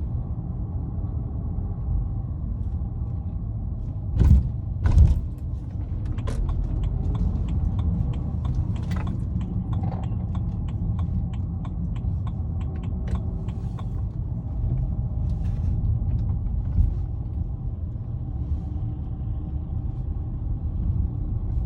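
BMW E90 318i with a manual gearbox accelerating in gear at low revs: steady low engine and road rumble with light metallic clicks and rattles scattered through it, and two louder thumps about four and five seconds in. The owner suspects the rattle, heard only under load in gear and never at idle, is a gearbox fault.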